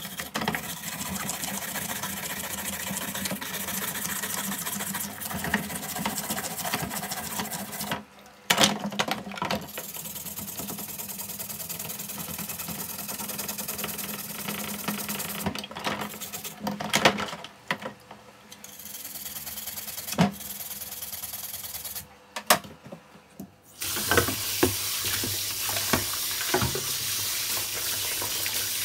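A stiff brush scrubbing the plastic housing shells of a Makita 6222D 9.6 V drill in a basin of soapy water, in long bouts of rapid strokes with a few short pauses. Near the end a tap runs and splashes over the parts as they are rinsed.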